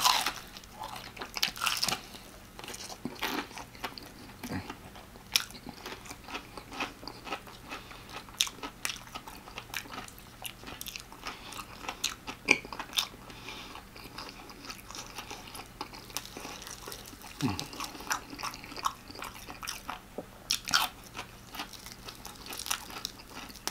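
Close-up eating of extra crispy fried chicken: biting through the fried crust and chewing, with irregular crunches and wet mouth clicks throughout, loudest at the first bite.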